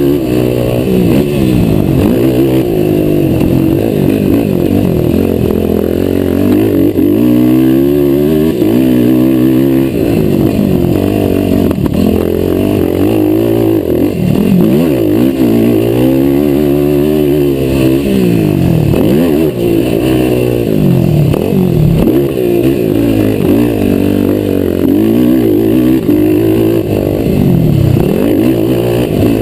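Racing quad's engine, heard from a camera mounted on the quad, revving hard and easing off again and again, its pitch climbing and dropping with the throttle as it is raced over motocross jumps and turns.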